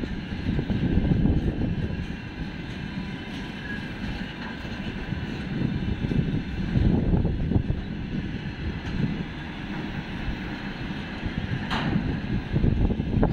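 A freight train of open gondola wagons and container flatcars rolling past: a steady low rumble and clatter of steel wheels on the rails. Near the end there is one brief, sharp metallic noise.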